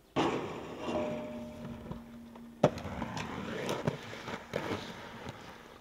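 Inline skates landing on and grinding along a steel guardrail, a rough scraping with the rail ringing in two steady tones. About two and a half seconds in comes a single sharp hard landing, the loudest moment, followed by skate wheels rolling on rough concrete with scattered clacks.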